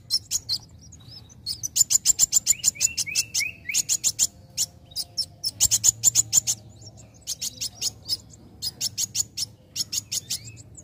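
A young kolibri wulung sunbird singing in repeated bursts of rapid, high-pitched chips, about ten a second, with a few short sliding notes about three seconds in.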